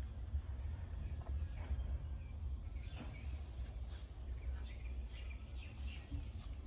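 Background ambience: a low steady rumble, with faint bird chirps in the second half.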